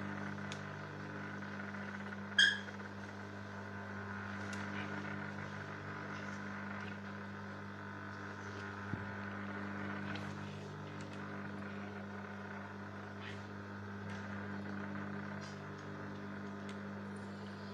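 Steady low electrical hum, with a few faint ticks and one short high squeak about two and a half seconds in.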